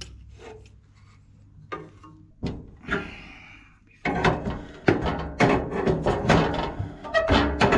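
Spanners working a brass compression nut on a plumbing fitting: a few metal clicks, then from about four seconds in a dense run of scraping, rubbing and clicking strokes as the nut is done up tight.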